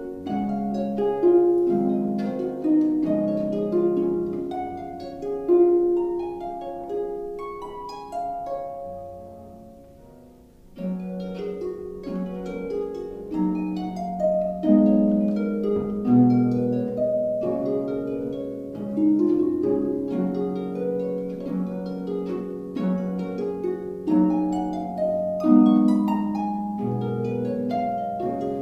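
Concert harp played solo: a melody of plucked, ringing notes and chords. About a third of the way through, the sound dies away to a brief pause, then the playing resumes fuller, with deep bass notes now and then.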